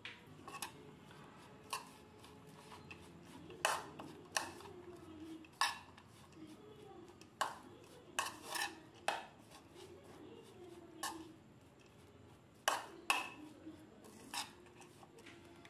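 A metal spoon stirring a grated potato and carrot mixture in a bowl, clinking sharply against the bowl's side at irregular moments, about fourteen times.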